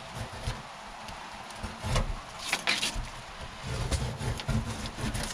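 Sanding disc and drill backing pad being handled on a workbench: irregular knocks and bumps, with a couple of short scraping, rasping sounds about two and a half seconds in.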